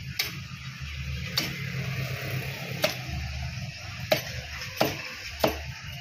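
A knife chopping through a large catla fish on a cutting block: six sharp chops at uneven intervals, over a low steady hum.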